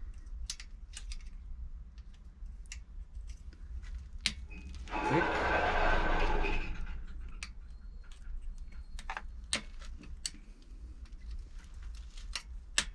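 Sharp metallic clicks and clinks of a hand tool working the bolts of a Yamaha Drag Star's right-side engine cover, breaking them loose one after another around the cover. About five seconds in there is a louder stretch of scraping noise lasting about two seconds.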